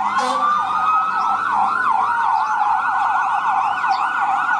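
Fire-engine siren yelping: fast up-and-down sweeps repeating several times a second, with a slower wail gliding up and then down over them in the first couple of seconds.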